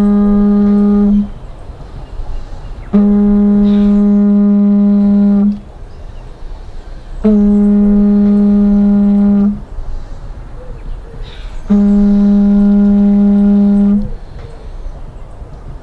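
Conch shell trumpet blown in long blasts of one steady low note, each about two seconds and repeating about every four seconds; each blast starts with a slight scoop up into the note.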